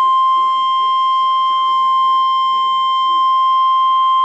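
NOAA Weather Radio's 1050 Hz warning alarm tone: one loud, steady, high-pitched tone held without a break. It signals that an urgent watch or warning message is about to follow.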